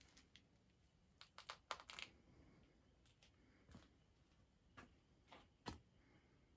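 Near silence: quiet room tone with a few faint, short clicks and taps, several close together about two seconds in and single ones later on.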